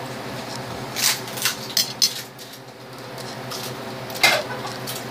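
A metal fork clinking and scraping on a plate of spaghetti, a few short clatters scattered through, over a steady low hum.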